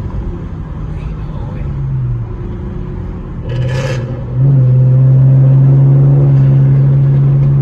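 Car engine and aftermarket exhaust droning while driving. About four and a half seconds in it gets much louder and holds a steady deep note for a few seconds. A brief hiss comes just before.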